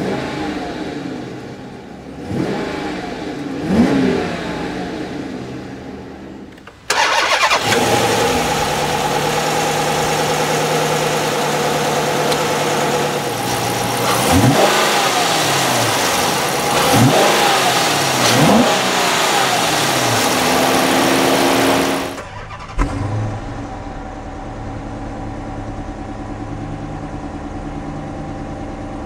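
2013 Chrysler 300C's 5.7-litre Hemi V8 revving and idling. There are two short revs heard from inside the cabin, then a louder stretch close up under the open hood with three more revs. Last comes a steady idle at the dual exhaust tips after a quick blip.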